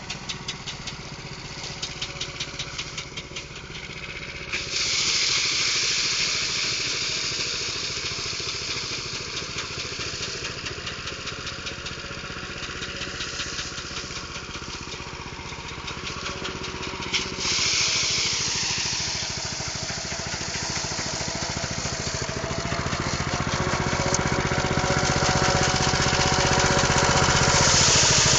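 Engine-driven rice thresher running steadily, with a rapid even pulse early on. A loud rushing hiss comes in abruptly about four seconds in and again about seventeen seconds in, the sound of rice being threshed in the machine.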